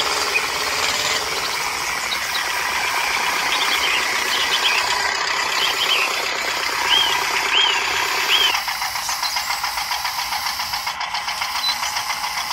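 Small electric motor and gearbox of a homemade toy tractor running under load, a steady whir with a fast rattle as it pulls a tanker trailer through sand. The lower part of the sound drops away about two-thirds of the way through.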